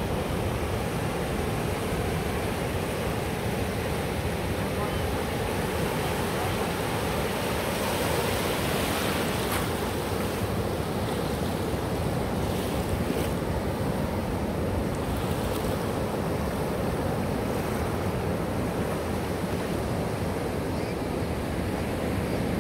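Steady rush of ocean surf on a beach.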